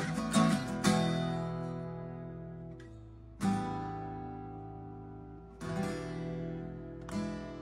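Acoustic guitar strummed: a few quick strums at the start, then single chords about every two seconds, each left to ring out and fade.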